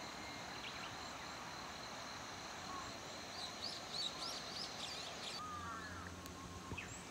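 Wild birds singing faintly in the hillside woods around the lake, with a run of quick high chirps in the middle and a few lower sliding notes near the end, over a quiet steady outdoor background.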